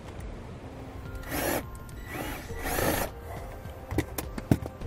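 Cordless drill driving #12 self-tapping screws through the brake actuator's mounting bracket into the floor, in two short bursts about a second and a half and three seconds in. A few sharp clicks follow near the end.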